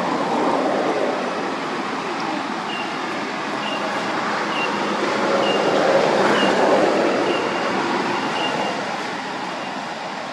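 Steady outdoor rushing noise, like distant traffic, that swells about six seconds in, with a short high chirp repeating about once a second through the middle.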